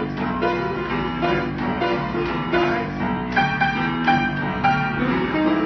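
Grand piano being played: an upbeat tune of quick notes and chords, with a few held notes standing out in the middle.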